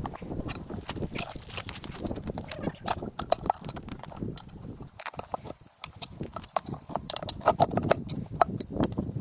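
Irregular metallic knocks and clanks of hand tools working on a car wheel and tire, with a short lull about five seconds in.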